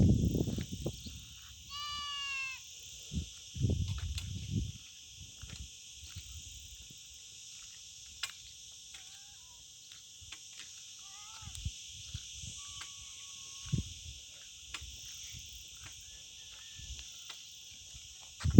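A steady high-pitched insect chorus, with one short bleat-like animal call about two seconds in, a few faint chirps, and scattered low thumps.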